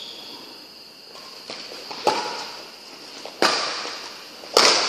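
Badminton racket strikes on a shuttlecock during a rally: sharp cracks a little over a second apart, the last two loudest, each ringing briefly in the echo of a large hall.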